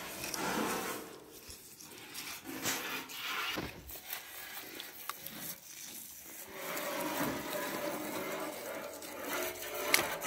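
Butcher's knife cutting and scraping through pork fat and meat on a boar carcass, with the wet rubbing and rustling of the slab being pulled apart by hand; a sharp click near the end.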